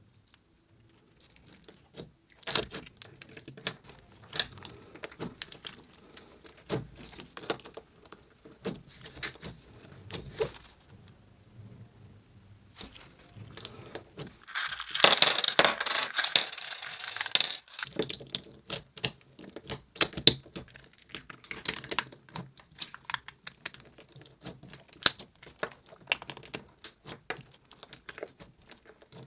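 Clear putty packed with small plastic donut charms being kneaded and pressed by hand: irregular sticky clicks and crackles, with a denser, louder burst of crackling about halfway through.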